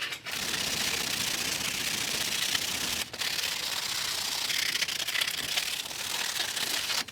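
Sandpaper rubbing across a bicycle disc brake rotor, roughening its surface to remove the oily film that makes the brake squeal. The rubbing is a steady scratching hiss with a short break about three seconds in.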